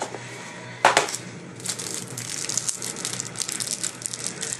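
A sharp plastic snap about a second in, then steady crackly crinkling of plastic packaging as a pack of baseball cards is opened by hand.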